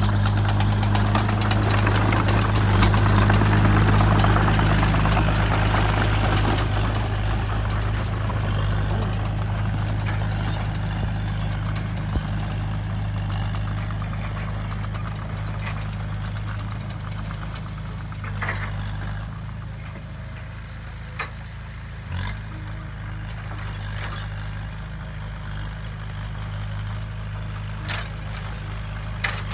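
Heavy diesel engine of construction machinery running steadily. It works harder and louder for the first several seconds, then settles to a lower, calmer run, with a few short sharp clanks scattered through the second half.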